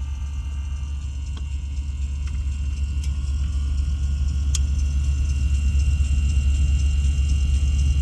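Panasonic refrigerator's automatic ice maker turning its tray over to release the ice, with a steady low hum that grows a little louder. A few light clicks and cracks come as the cubes break free; the sharpest is about four and a half seconds in.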